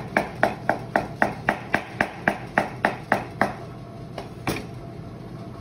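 Chef's knife slicing a white mushroom on a plastic cutting board: quick, regular knocks of the blade striking the board, about four a second for roughly three and a half seconds, then a single knock near the end.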